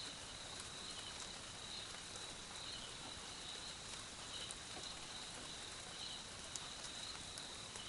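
Faint steady background ambience: an even hiss with a thin, wavering high tone and a few soft ticks.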